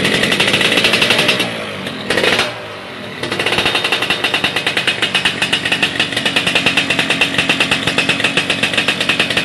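Suzuki Satria R 120's two-stroke single-cylinder engine revving through an AHM Malaysia aftermarket racing exhaust. It eases off twice in the first three seconds, then is held at high revs with a fast, even pulsing crackle.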